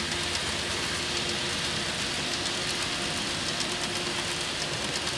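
N-scale model passenger train rolling past on the track: a steady hiss of small wheels on rail with scattered faint clicks and a faint steady hum.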